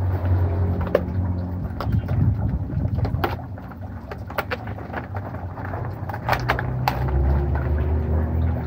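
Hands handling a headset's cardboard box and plastic packaging tray: scattered clicks, taps and rustles as the box is opened and the tray slid out, over a steady low rumble.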